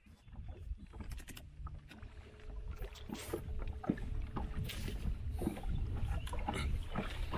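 Wooden boat moving on a river: water splashing and lapping against the hull, with many small knocks and clicks over a low rumble. It starts suddenly.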